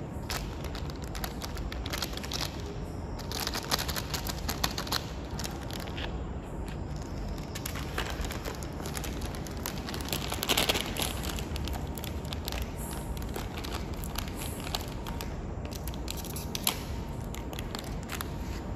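Handling noise of a plastic packet and a small cardboard box: crinkling, rustling and scattered clicks as small items are picked up and set down on a concrete floor. The loudest rustle of the packet comes about ten seconds in, over a steady low background rumble.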